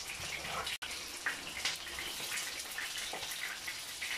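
Steady hiss with a few faint taps of a knife slicing a ball of fresh mozzarella on a ceramic plate; the sound cuts out for an instant about a second in.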